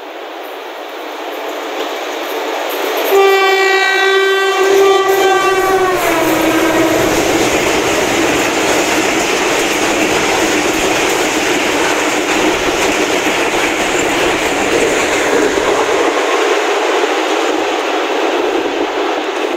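Passenger train's locomotive horn sounding for about three seconds as the train comes through at speed, its pitch dropping as it passes. Then a long rake of coaches rushes by, with steady wheel-and-rail noise and clickety-clack over the rail joints.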